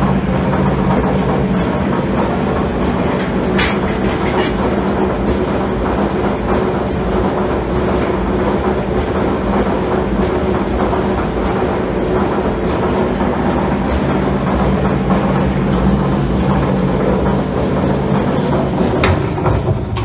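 Admiral AED4675YQ1 electric clothes dryer running with its drum turning: a steady motor hum under a loud rattling rumble. The owner suspects a bad drum bearing or a lack of grease.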